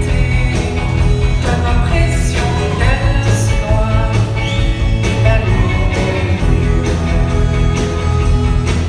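A live rock band playing a song with drums, bass guitar, electric guitar and keyboards, with vocals over the top.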